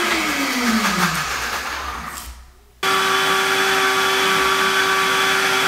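Countertop blender motor blending a hemp-seed dressing: it is switched off and spins down with a falling whine, stops briefly, then is switched on again about three seconds in and runs at a steady full speed.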